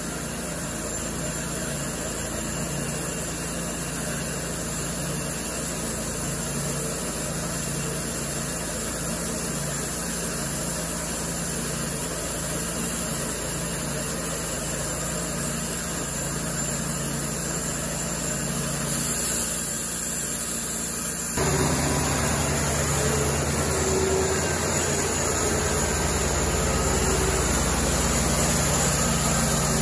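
Cook's MP-32 band sawmill running steadily, its engine and band blade sawing through a log. About two-thirds of the way through the sound changes abruptly and gets a little louder as the mill saws a squared timber.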